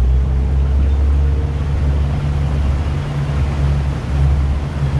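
Outboard motor of a small aluminium dinghy running steadily under way, a constant low hum.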